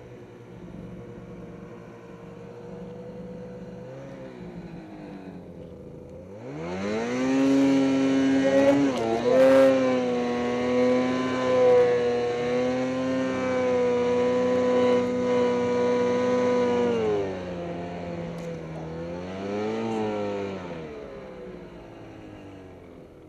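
Snowmobile engine running at low revs, then throttled up about six seconds in and held at high revs for some ten seconds. It drops back, revs briefly once more, then eases off and fades near the end.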